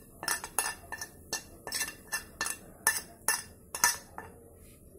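A spoon clinking and scraping as coarsely ground spices are knocked off a plate into a stainless steel pot, with sharp clinks about twice a second.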